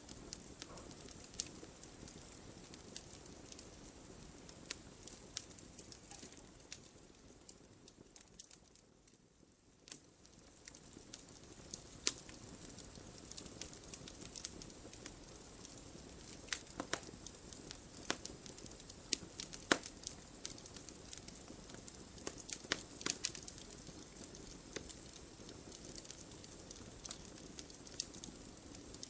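Wood fire in a fireplace crackling, with many sharp pops over a soft steady hiss. The crackling thins out briefly about a third of the way in, then picks up again with more frequent pops.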